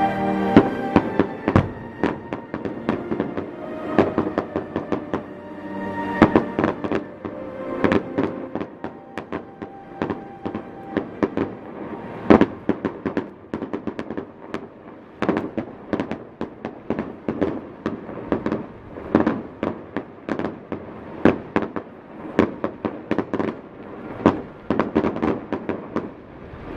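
Fireworks display: a rapid, irregular stream of bangs and crackling bursts, several a second, with music playing underneath that is clearest in the first half.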